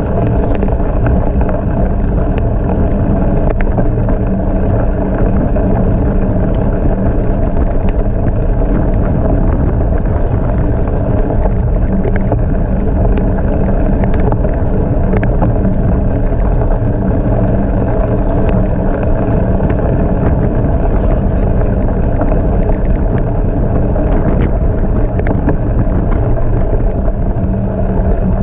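Wind buffeting the microphone over a steady rumble from a bicycle being ridden at speed, with frequent small ticks and rattles.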